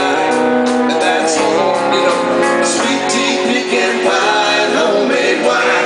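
Live country band playing a song, with amplified guitars.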